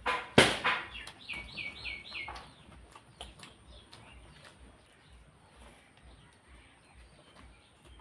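Wet chewing and lip smacks from eating rice and curry by hand, with a sharp smack just after the start as the loudest sound. About a second in, a bird gives five quick chirps; after that only faint mouth clicks remain.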